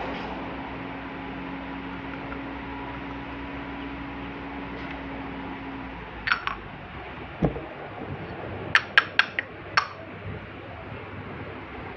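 Miniature toy kitchen utensils and dishes clinking and tapping as they are handled. A light clink comes about halfway through, then a dull knock, then a quick run of four or five bright clinks near the end.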